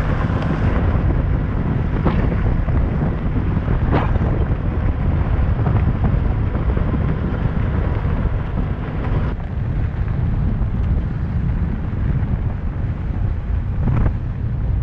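Wind buffeting a camera microphone mounted on the side of a moving truck, over the rumble of tyres on a gravel road, with a few sharp ticks of gravel. The noise changes abruptly about nine seconds in.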